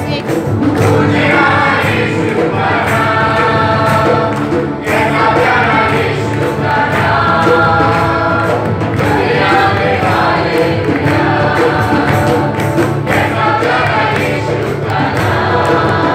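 Live worship song: a mixed group of women and men singing together, backed by acoustic guitar, electric bass guitar and a Yamaha keyboard.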